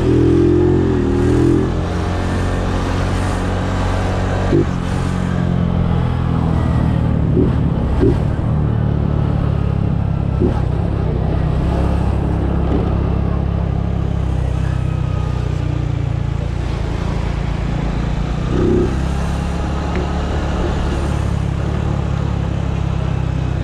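Honda Biz scooter-style motorcycle riding along the road, its single-cylinder engine running under a steady, heavy wind rumble on the microphone. There is a brief rise in engine pitch at the start, and a few short knocks along the way.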